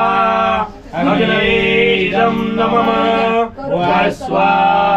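A man's voice chanting Sanskrit homa (fire-offering) mantras in a singsong recitation of long held notes, broken by short pauses for breath. 'Svāhā', the call said as each offering goes into the fire, is sung about two and a half seconds in.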